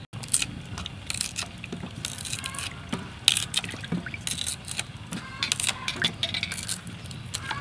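Water sloshing and splashing in a steel basin as hands wash a bunch of green bananas and leafy greens, in irregular splashes.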